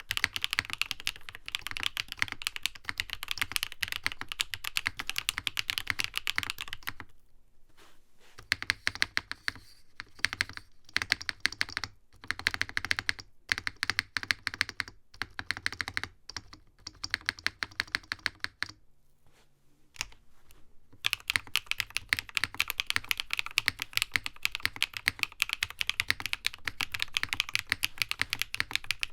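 Typing on a NovelKeys Classic TKL mechanical keyboard: fast, continuous keystroke clacks. From about 7 s to about 21 s the strokes thin out into separate presses with short gaps, then fast typing resumes.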